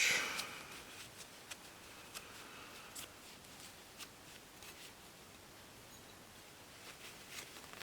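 Small metal knife parts being handled on a work surface: a brief rub at the start, then a few faint light clicks over the next few seconds.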